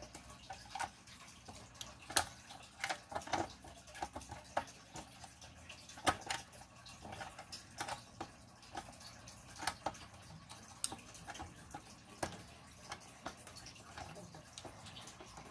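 Scattered light clicks and taps of a Fire-Lite BG-10 fire alarm pull station being handled, closed up and reset, the sharpest clicks about 2 and 6 seconds in.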